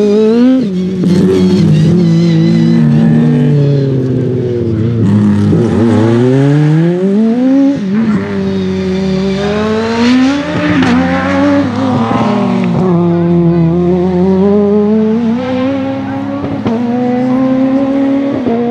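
Peugeot 306 Maxi kit car's high-revving 2.0-litre four-cylinder engine (PSA XU10J4RS) driven hard. Its pitch climbs steeply under acceleration, drops suddenly on quick sequential gearshifts and lifts, then climbs again in a long rise near the end.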